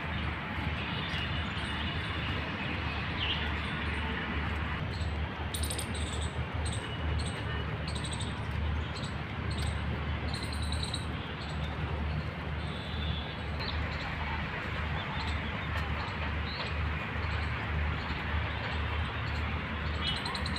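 Outdoor park ambience: a steady rush with a fluctuating low rumble, and small birds chirping in short high calls, most of them in the middle of the stretch and a few near the end.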